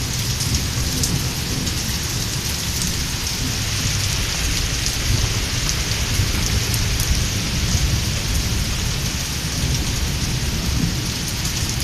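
Heavy rain pouring steadily, a dense even hiss with a constant low rumble underneath.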